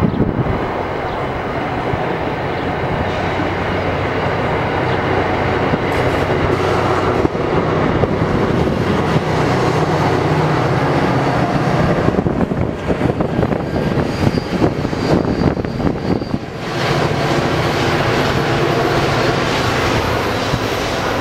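Metro-North diesel-hauled commuter train passing on a curve: a steady rumble of wheels on rail. A diesel locomotive's engine hum stands out about halfway through and again near the end as the locomotive goes by.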